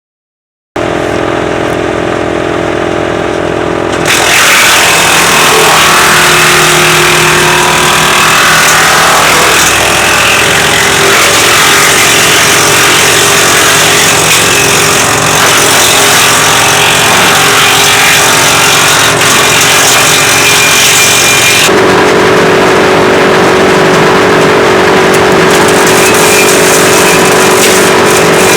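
WC 8 woodchipper running, its engine starting up about a second in. It gets much louder and rougher about four seconds in and stays loud, with a steadier tone taking over near the end.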